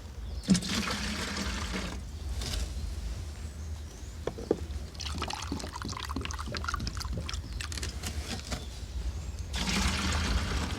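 Water poured from a cup into a container to dilute worm-casting tea, splashing in two spells: one at the start and one near the end. Light knocks and clatter of the vessels come in between.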